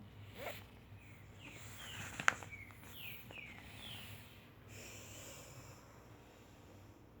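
Faint bird chirps: several short falling notes in quick succession, with a sharp click a little over two seconds in.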